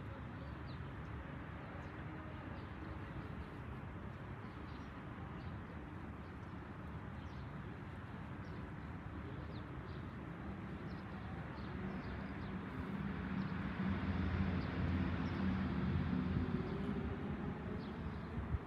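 Outdoor ambience with faint scattered bird chirps, and a low engine-like hum that builds up over the second half.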